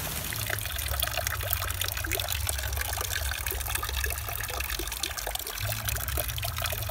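Rainwater trickling off a roof edge and splashing into a plastic rain barrel, with a dense patter of drips and splashes. A low steady rumble runs underneath.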